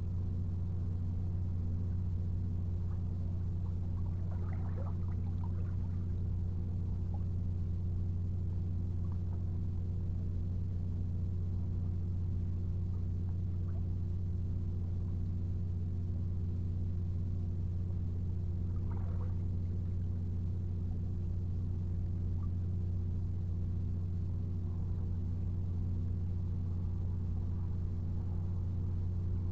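A steady low mechanical hum of several held tones, unchanging throughout, with a few faint short high sounds over it.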